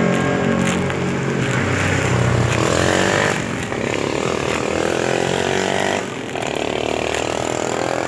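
Motor vehicle engines running, changing several times, with one rising in pitch about two to three seconds in as it speeds up.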